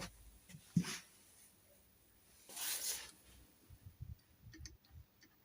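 Faint small clicks of a pick working the levers of a picked-open SMP 7-lever safe lock, with a short breathy rustle about halfway through.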